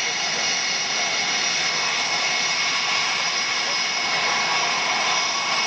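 CF-18 Hornet fighter jet's twin engines idling, a steady jet whine with several high whistling tones held level.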